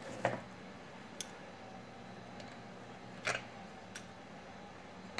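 A few light clicks and taps of small parts being handled on an opened chainsaw's oil pump area, the loudest about three seconds in.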